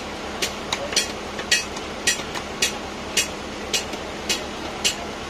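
Large knife chopping a surmai (seer fish) on a wooden block, about two sharp knocks a second in a steady rhythm, over a constant market hum.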